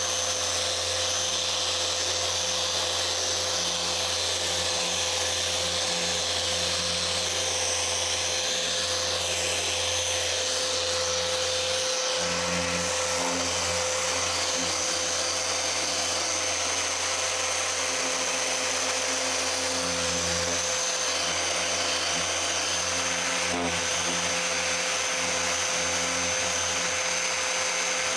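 A 3-inch Flex forced-rotation orbital polisher runs steadily, compounding car paint with a wool pad to remove swirls. It holds a constant whirring pitch, with slight changes in load now and then.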